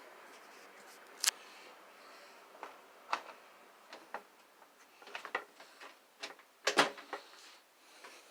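Irregular sharp clicks and knocks, a handful spread unevenly, the loudest a close pair about two-thirds of the way through.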